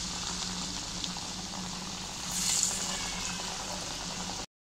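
Freshly dropped vadas of chana dal and banana blossom batter deep-frying in hot oil: a steady sizzling, bubbling hiss that swells briefly about halfway through. It cuts off suddenly near the end.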